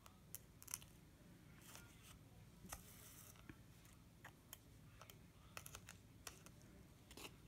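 Faint handwork sounds of bead embroidery: scattered light clicks as a needle picks up glass seed beads and is stitched through the backing, with a short scratchy rasp about three seconds in.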